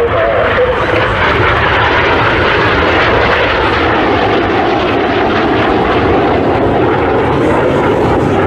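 Loud, steady jet noise from Red Arrows BAE Hawk T1 jets, whose Adour turbofan engines are running as they fly a display pass.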